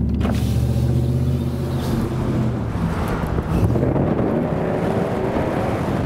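Pickup truck engine accelerating, heard from inside the cab, its note climbing steadily through the second half, with the intake sound of its air filter.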